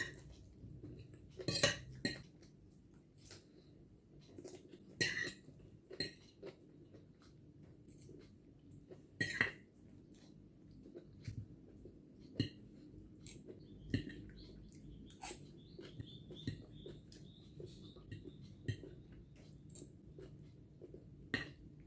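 A metal fork clinking and scraping against a ceramic plate while eating salad, in scattered, irregular strokes with quiet gaps between them.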